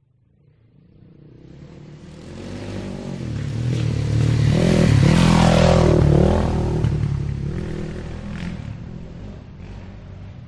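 Motorcycle engine driving past: it grows louder over about five seconds, its engine note shifts in pitch as it goes by, then it fades away.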